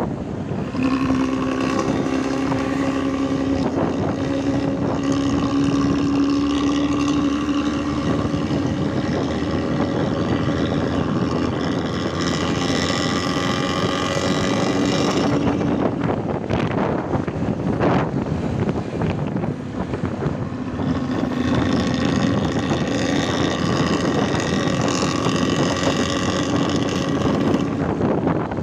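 Bus engine running through a loud 'ngorok' (snoring) aftermarket exhaust, a steady droning note with many overtones. The note drops away for a few seconds about halfway through, then returns.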